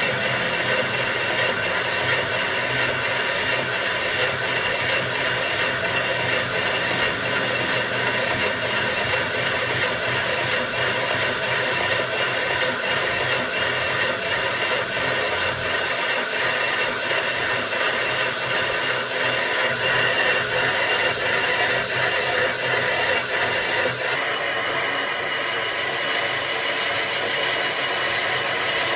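Metalworking machine running steadily while machining a flywheel's surface: a continuous rubbing, scraping cutting noise over a hum with several held tones. The higher part of the sound shifts near the end.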